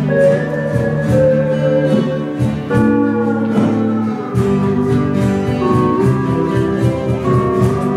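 Live band music led by a steel guitar playing a sliding, held melody over strummed guitars and bass, with a steady beat.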